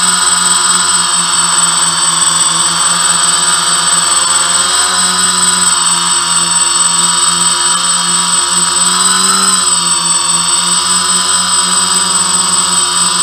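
FPV quadcopter's motors and propellers buzzing steadily, with a constant thin high whine above them. The pitch wavers up and down briefly about nine to ten seconds in.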